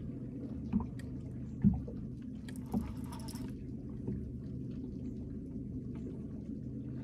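Steady low hum of a boat's motor, with a few dull knocks about one, two and three seconds in and a short hiss near the three-second mark.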